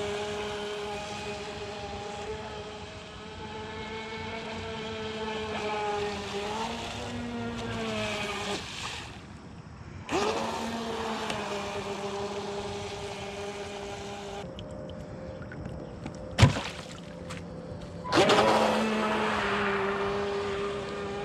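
Proboat StealthWake 23-inch deep-V RC boat's brushed electric motor whining at speed on a 2S LiPo, with water spray off the hull; the pitch rises and falls with the throttle. The whine cuts out briefly, later eases off, and there is a single sharp click before it comes back up loud.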